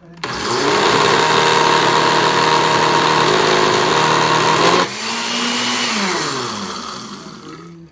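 Countertop blender motor running at high speed, churning milk, crushed Oreo cookies and sugar into a milkshake. About five seconds in it drops suddenly in level, then winds down with a falling pitch and fades out near the end as the blender is switched off.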